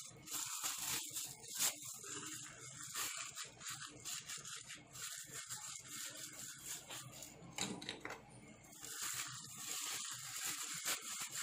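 A plastic-gloved hand kneading and squishing a raw meatloaf mixture of ground beef and crushed crackers in a ceramic bowl: irregular rustling and squelching strokes.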